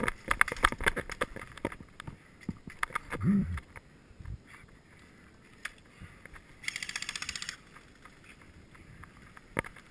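Close clatter of gear and knocks as an airsoft player moves and settles against a wooden wall, with a low thump a few seconds in. About seven seconds in comes a short burst of rapid, evenly spaced clicks lasting about a second, an airsoft gun firing on full auto.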